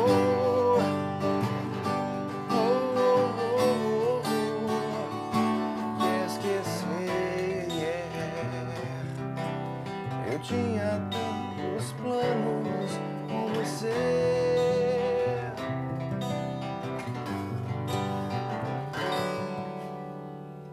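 Band music, the closing bars of a pop song: strummed acoustic guitar over bass with a wavering melody line on top, fading out near the end.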